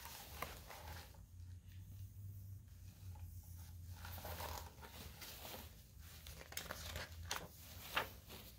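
Faint rustling and crinkling of a picture book's paper pages being handled, with a few soft taps near the end.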